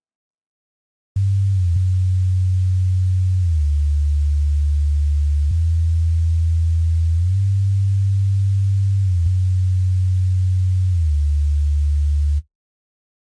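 Sylenth1 software synth playing a sub-bass line alone: a deep, smooth, sine-like bass tone held through long notes and stepping between a few low pitches. It starts about a second in and cuts off abruptly near the end.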